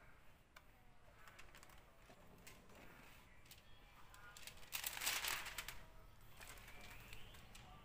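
Thin plastic polarizer film crinkling and rustling as it is handled over an LCD panel's glass, with scattered light crackles and ticks. The loudest crinkling comes about five seconds in.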